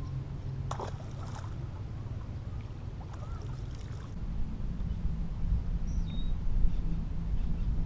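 Wind rumbling on the microphone over water slapping against the fishing boat's hull, with one sharp click about a second in. The wind rumble grows stronger about halfway through.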